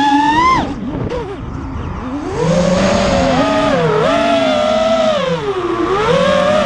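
FPV quadcopter's brushless motors and propellers whining, the pitch rising and falling with the throttle. The pitch climbs, then falls away and goes quieter just before a second in as the throttle is cut. It comes back up about two and a half seconds in and keeps swinging up and down.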